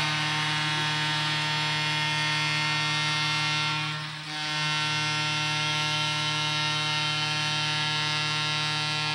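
Arena goal horn sounding in one long, steady, buzzing tone for a home-team goal, with a brief break about four seconds in.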